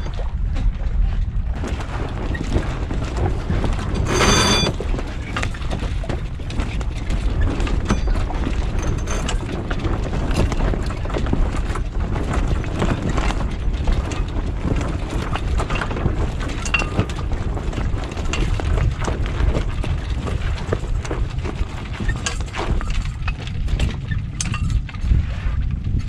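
Wind buffeting the microphone on a small sailboat, with scattered clicks and knocks of lines and rigging being handled. A brief high squeak stands out about four seconds in.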